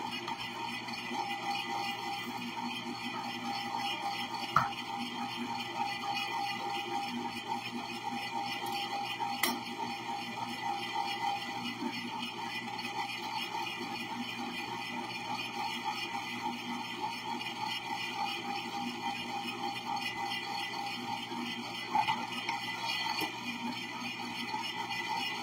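Electric ice cream maker running with a steady hum as it churns a batch of ice cream, while chopped almonds are added through the lid. A few sharp knocks of a knife and wooden cutting board break in, the loudest one early on.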